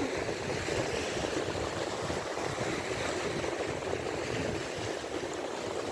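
Waves of the Gulf of Finland washing steadily onto the shore.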